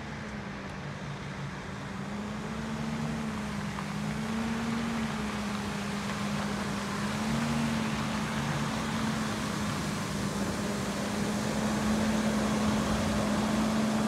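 Freightliner M2 water truck's Cummins ISL six-cylinder turbo diesel running with a steady hum that wavers a little in pitch, over the hiss of water spraying onto dirt from its spray heads. It grows louder as the truck drives closer.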